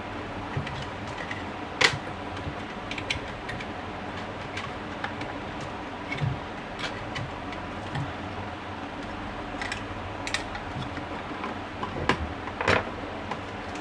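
Scattered small clicks and taps from wiring work, with wires and a plastic switch handled as they are connected, over a steady background hum. The sharpest clicks come about two seconds in and twice near the end.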